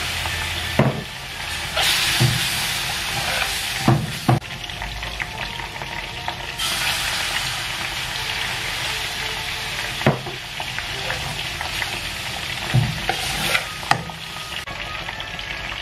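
Butter-and-flour roux for béchamel sizzling in a hot metal frying pan as milk is poured in and stirred with a metal spoon, a steady frying hiss that thickens when the milk goes in. The spoon scrapes the pan and gives a few sharp clinks against it.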